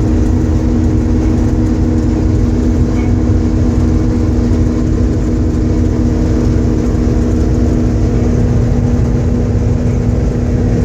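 New Holland TR96 rotary combine running steadily while harvesting barley, heard from inside its cab: a constant low engine and machinery drone with a steady hum over it.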